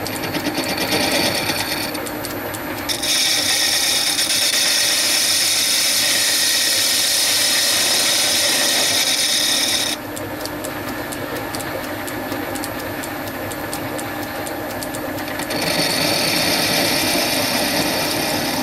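Small metal lathe running, its tool facing the back of a rough-cast wheel. The cutting comes in as a loud hissing scrape about three seconds in, drops back to the lathe's running sound at about ten seconds, and returns about fifteen seconds in.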